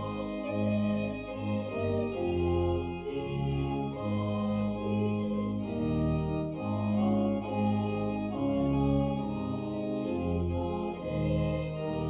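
Organ playing the closing hymn in held chords that change about every second.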